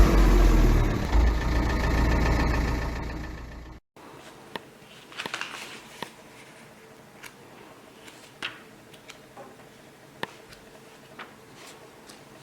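An engine running with a strong low rumble, fading over the first few seconds and cutting off abruptly about four seconds in. After that, faint room tone with scattered light ticks.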